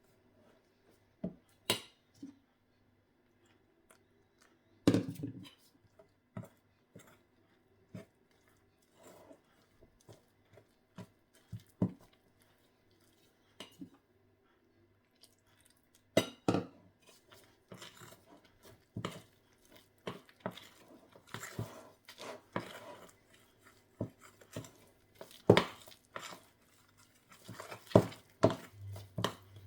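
A utensil clinking and scraping against a bowl while gram-flour batter is mixed, with water added a little at a time. Scattered knocks at first, then near-continuous stirring clatter over the second half.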